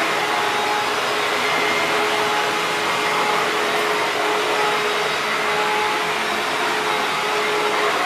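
Maytag WindTunnel bagless twin-chamber upright vacuum cleaner running steadily: a constant rush of air with a steady motor whine over it.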